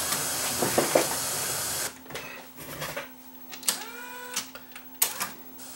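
Steady white-noise hiss from an FM tuner tuned between stations, the test signal for setting tape bias, cuts off about two seconds in. Then come the clicks and clunks of the Technics RS-M275X cassette deck's transport mechanism, with a faint motor hum and a brief rising whine as the tape is wound back.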